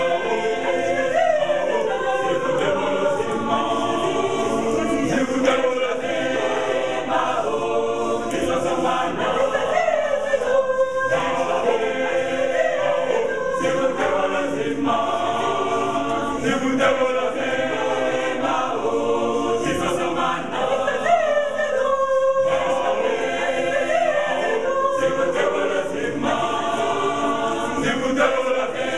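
Mixed choir of men and women singing together in harmony.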